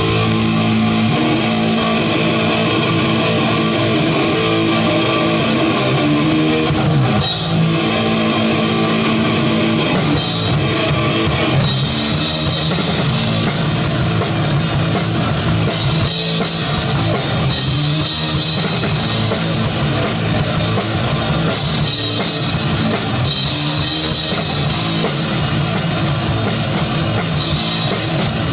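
Punk band playing live and loud: distorted electric guitar and bass over a drum kit, heard close to the drums.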